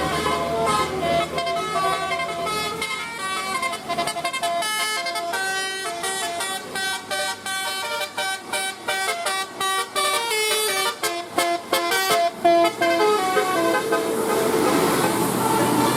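Basuri telolet multi-tone bus horn playing a tune: a quick run of short toots that jump from pitch to pitch. The tune thins out about three seconds before the end.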